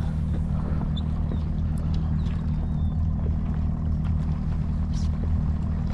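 Boat engine idling, a steady low hum, with a few faint ticks over it.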